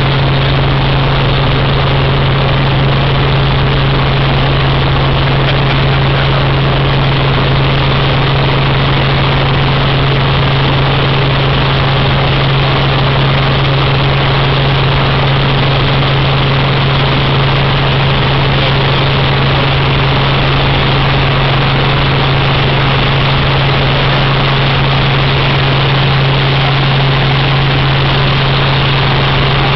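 Helicopter in flight heard from inside the cabin: engine and rotor noise as a loud, steady drone with a strong low hum that does not change.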